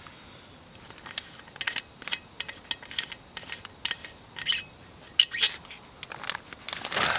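Lid being screwed back onto a Karrimor aluminium water bottle: an irregular string of short metallic clicks and scrapes, a few a second.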